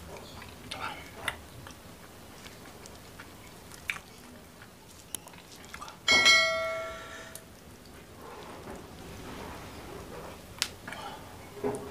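Close-up eating sounds: fingers picking apart a fried gourami in sambal, with small clicks and chewing. About six seconds in, a bright notification-bell ding from a subscribe-button animation rings out, the loudest sound, and fades over about a second.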